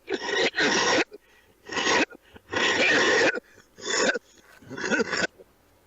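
A man's coughing fit: six loud coughs in a row, about a second apart, one of them drawn out longer than the rest.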